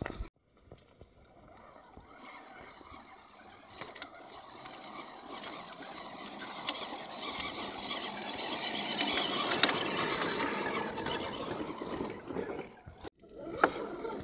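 Electric 1/10-scale RC trucks crawling over wet rocks and gravel: a high motor and gear whine with tyres scrabbling on stones, growing louder as they come close and loudest about two-thirds in, then cutting off near the end.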